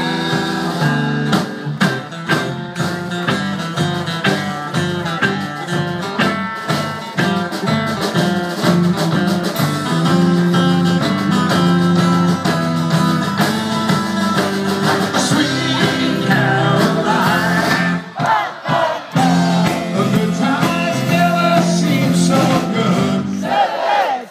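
Live band playing amplified electric guitars over a drum kit with a steady beat, the music dropping away briefly about 18 seconds in.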